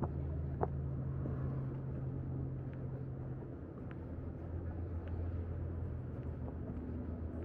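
Street ambience: a steady low hum of vehicle traffic, with a few faint light ticks over it.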